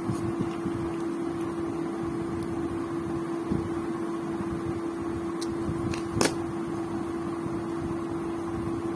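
A steady hum on one pitch, with two short clicks, the second about six seconds in and louder.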